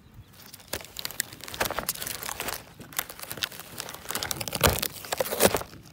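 Blue painter's tape crinkling and tearing as hands pull at the phone taped under it, handled right against the phone's microphone, with a couple of louder crackles near the end.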